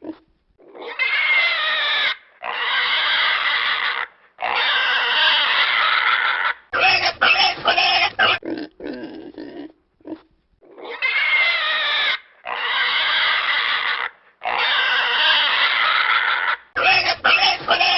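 Pig squealing: three long, high squeals of a second or two each, then a quick run of short grunts and squeals. The same sequence repeats from about halfway through, as a loop.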